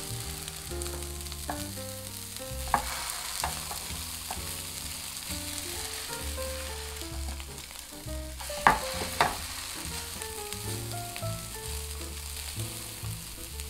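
Ground beef and pork hamburger patties sizzling in a non-stick frying pan as they are turned over with a spatula, seared side now facing up. Sharp clicks of the spatula against the pan come twice in pairs, once for each patty flipped.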